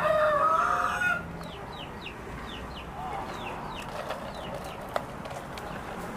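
Rooster crowing, one long held call that ends about a second in. It is followed by a run of short, high, falling chirps.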